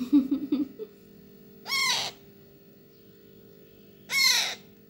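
Parrot chick being hand-fed from a spoon: a quick run of short low pulses at the start, then two loud begging squawks about two and a half seconds apart. The chick is still calling for more food.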